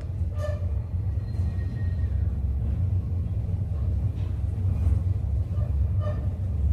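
Westinghouse traction elevator car travelling up the hoistway at speed: a steady low rumble of the ride heard from inside the cab.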